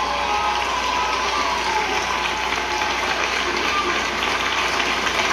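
Large theatre audience applauding steadily, with some voices shouting over it in the first two seconds.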